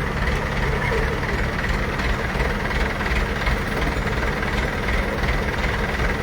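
Heavy diesel engine idling steadily with a low rumble.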